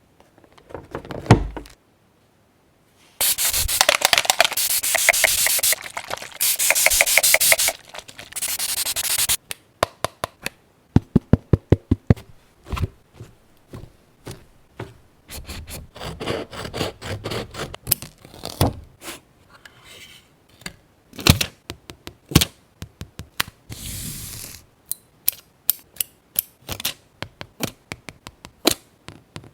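Paper-craft handling sounds: several seconds of loud rubbing and scraping on paper in three stretches, followed by a long run of light taps and clicks with a few short scratches as pieces are handled and pressed down.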